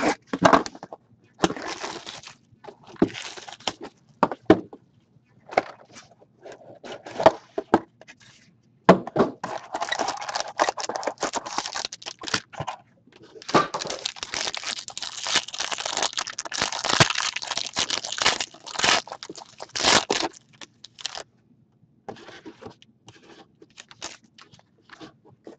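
Plastic shrink-wrap and cardboard being cut and handled as a sealed hockey card box is opened, then a foil card-pack wrapper crinkling and tearing. The crinkling is densest and loudest for several seconds from about the middle, with lighter rustles and clicks near the end.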